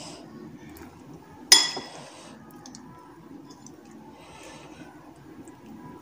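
A metal utensil clinks once against a mixing bowl about a second and a half in, ringing briefly. Faint soft rustling from chicken pieces being dredged in flour comes and goes around it.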